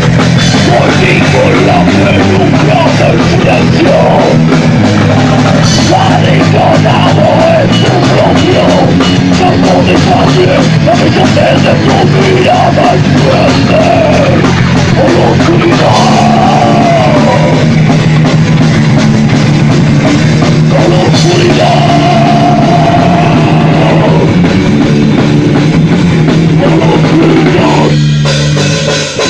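Rock band playing on drum kit and electric guitar, with a short break in the playing just before the end.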